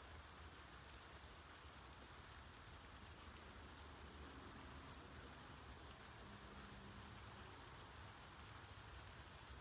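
Near silence: a steady faint hiss of outdoor ambience, with a faint low hum briefly near the middle.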